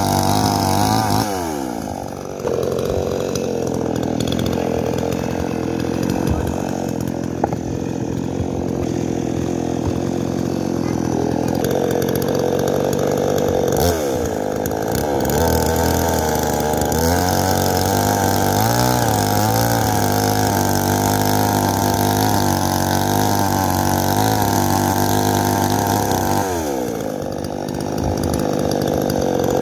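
Chainsaw cutting through firewood logs, running at high revs. Three times (about two seconds in, midway and near the end) the revs fall away and the saw then revs back up.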